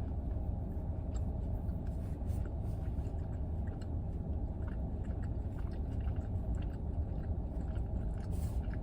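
Close chewing and small mouth clicks of someone eating a sandwich, over a steady low rumble inside a car.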